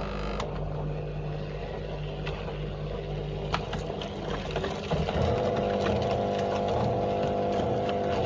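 LG washing machine running with a steady motor hum; the hum's pitch pattern shifts about five seconds in.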